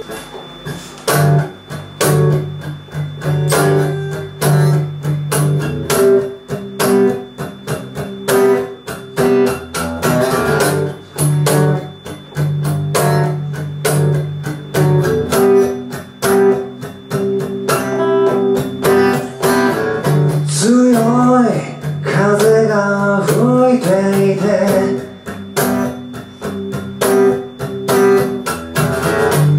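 Solo acoustic guitar playing a steady strummed rhythm over held low notes, the intro of a song. About two-thirds through, a few bending, sliding notes rise above the strumming.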